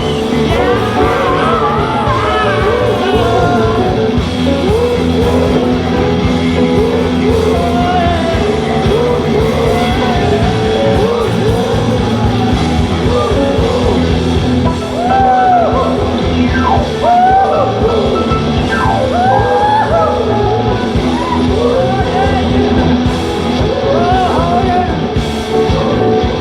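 Rock band playing, with guitar and sung vocals over a steady backing.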